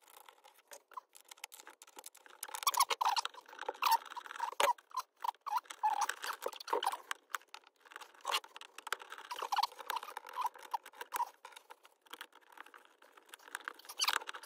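Light, irregular clicking and scraping of a hand tool on small metal terminal hardware, as a nut is tightened onto a fuse block's stud. The clicks come thick and uneven, loudest from about two seconds in.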